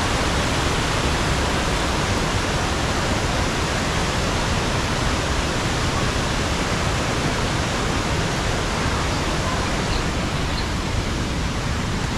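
Waterfall: water pouring steadily down the Krka river's cascades, a loud, even rushing noise.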